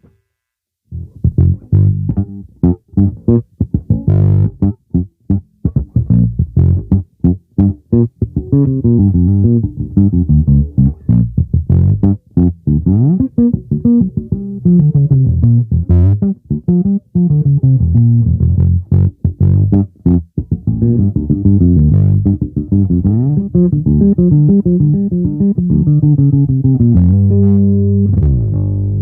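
Yamaha ERB 300 II electric bass with PJ pickups played solo: a run of plucked notes, choppy with short gaps at first and then more continuous, ending on a held note near the end.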